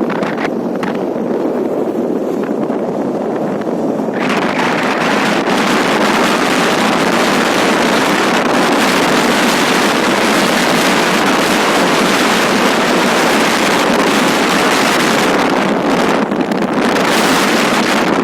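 Airliner's engines at takeoff power: a loud, steady rushing noise that swells and brightens about four seconds in, then dips briefly near the end.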